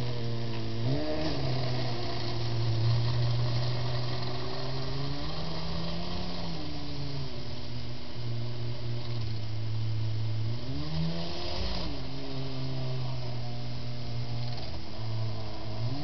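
Kyosho Blizzard RC snowcat's electric drive motors and gearing whining steadily as it drives over snow. The pitch swings up and back down about a second in, around six seconds, around eleven seconds and near the end as the speed changes.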